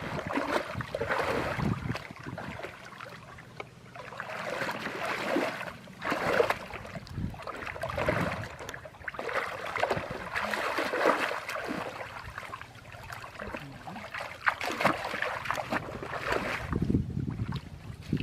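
Water splashing and sloshing in irregular surges, as from hands and legs working through shallow water.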